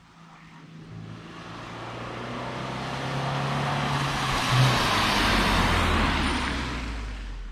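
A car driving past: engine note and road noise swell up, the engine pitch drops about halfway through, then the sound fades away.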